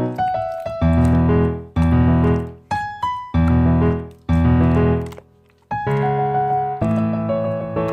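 Piano music: chords struck about once a second, each ringing and fading, with a short break about five seconds in.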